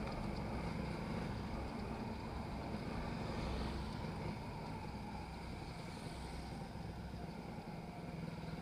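Suzuki Raider R150 Fi's single-cylinder engine running steadily as the motorcycle cruises along a street, with wind and road noise.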